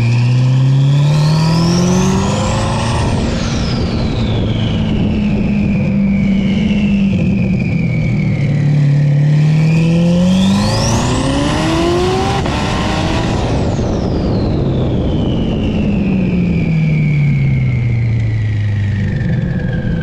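Twin-turbo C8 Corvette V8 pulling twice on the road: the engine note climbs and holds, then drops away each time it lifts off. A turbo whistle rises high with each pull and slides slowly down afterwards.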